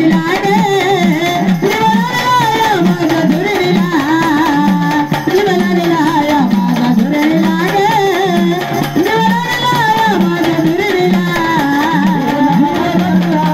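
Marathi gondhal folk music: a voice singing a bending melody over a steady drum rhythm.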